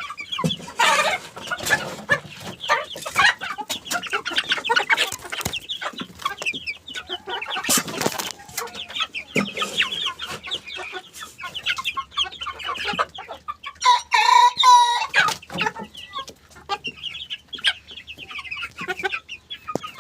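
A young rooster (cockerel) clucking and cheeping in short, rapid calls, with one longer high-pitched crow lasting just over a second about two-thirds of the way through.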